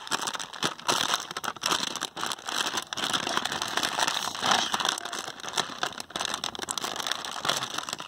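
Foil-lined plastic snack packet crinkling and crackling in the hands as it is twisted and torn open.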